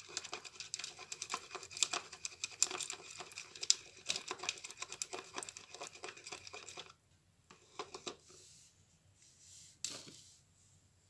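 Slime being squished and poked by hand, making dense, rapid crackling and clicking that stops about seven seconds in, followed by a few scattered clicks.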